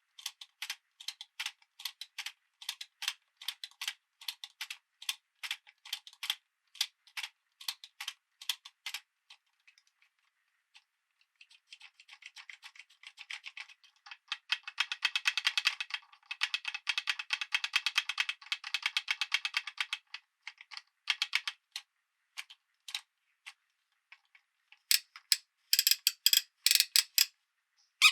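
Small hard plastic toy pieces clicking and clattering as they are handled: first a run of sharp clicks about three a second, then a dense stretch of rattling, then scattered clicks and a brief loud clatter near the end.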